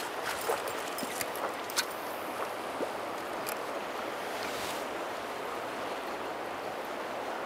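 Mountain stream flowing steadily, a constant rush of water, with a few small clicks and ticks in the first three seconds.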